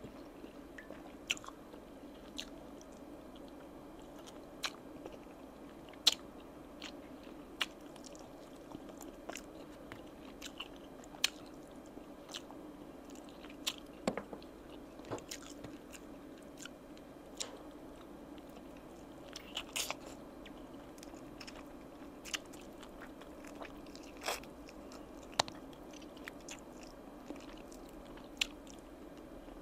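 Close-miked chewing and biting while eating oven-roasted chicken wings, with irregular sharp crunches and wet mouth clicks every second or two over a faint steady hum.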